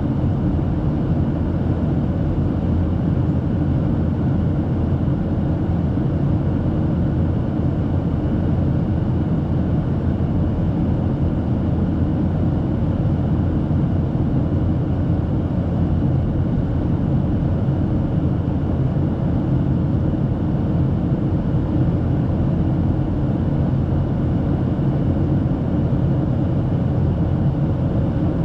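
Steady cabin noise of a Boeing 737-800 in flight: the drone of its CFM56 turbofans and the rush of air past the fuselage, even and unchanging throughout.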